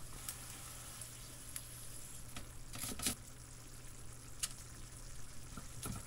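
Faint sizzle of seasoned ground beef simmering in its sauce in a stainless frying pan. A few short clicks and taps of a knife on a wooden cutting board are scattered through it, over a low steady hum.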